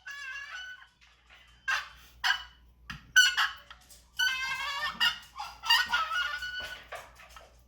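Turkey calls worked by beginners, giving a run of short, squeaky, honking yelps in about six bursts. They don't yet sound much like a real turkey.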